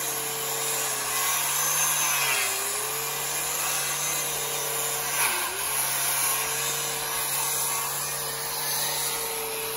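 Electric sander running steadily against the log walls, a motor whine over a rough sanding hiss, its pitch dipping briefly twice, about two and a half and five seconds in.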